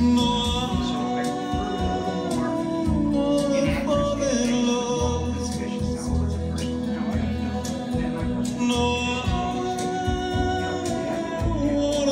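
A recorded song with a singing voice over steady deep bass notes, played back through Coherence loudspeakers driven by Triode Labs tube amplifiers.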